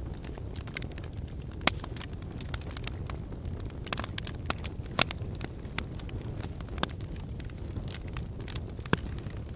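Fire crackling in a fireplace: frequent irregular pops and snaps over a low, steady rumble of the flames, with a few louder pops about two seconds in, halfway through and near the end.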